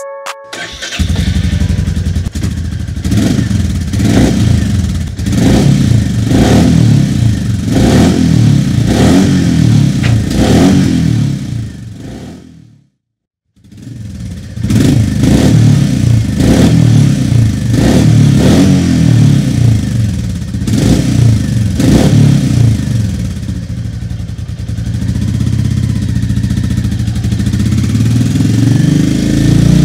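Royal Enfield Meteor 350's single-cylinder engine running through a Scorpion stainless-steel slip-on exhaust, revved in quick throttle blips about every second and a half. The sound breaks off for about a second midway, the blips resume, and then the engine is held steadier, rising near the end.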